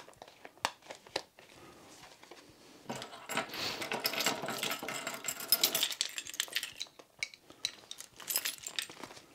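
Handling noises of a V-Force Grill paintball mask being reassembled: scattered plastic clicks, then a few seconds of dense metallic jingling and rattling in the middle, and more clicks near the end as a key on a keyring turns the mask's lens-frame lock.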